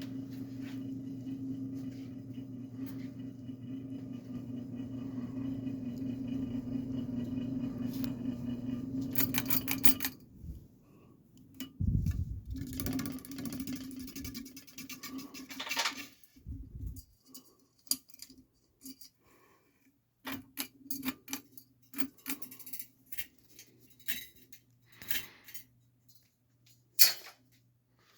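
SMC Twister UB-30 ceiling fan motor running with a steady electrical hum, which stops suddenly about ten seconds in. Scattered clicks and knocks follow, one sharp knock near the end the loudest.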